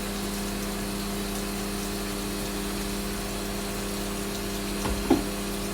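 Microwave oven running with a steady electrical hum while it cooks pasta. A short knock sounds about five seconds in.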